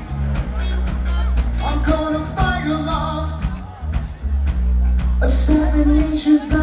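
Live rock band playing through a PA: electric guitars, bass and drums, with a voice singing. About five seconds in, a cymbal crash and a long held note come in.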